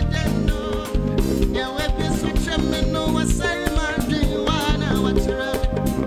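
Live band music: a male singer performing over electric bass guitar and drums.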